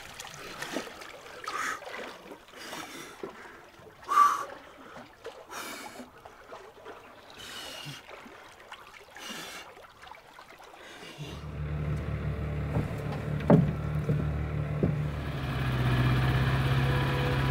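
A person splashing in lake water, a scatter of separate splashes over a soft wash. About eleven seconds in, a steady low hum sets in, with one knock a couple of seconds later and higher steady tones joining near the end.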